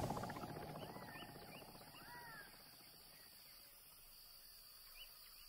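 Faint outdoor desert ambience with a few short, sliding bird chirps in the first two seconds and again about five seconds in, over a low rumble that fades away during the first two seconds.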